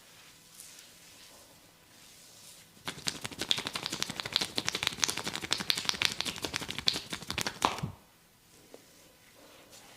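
Rapid percussive massage strokes, the masseur's hands striking quickly on the skin in a fast chopping or tapping rhythm. They start about three seconds in, last about five seconds, and stop abruptly.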